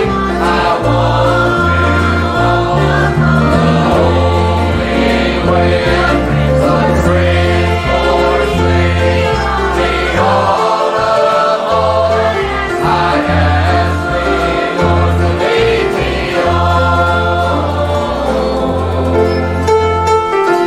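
A choir singing a gospel hymn with instrumental accompaniment and a bass line underneath.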